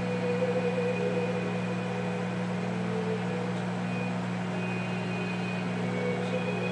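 Quiet background music of held notes over a steady low hum.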